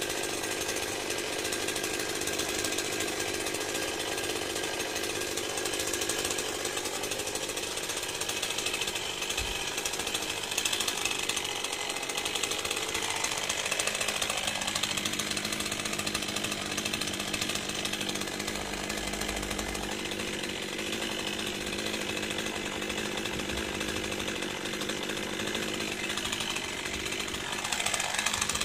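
Stihl MS 201 C-M two-stroke chainsaw running at speed. Its engine pitch dips and recovers about halfway through and again near the end.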